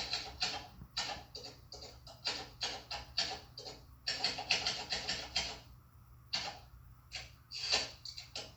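Manual typewriter keys striking in quick, uneven runs of sharp clacks, with a short pause about six seconds in.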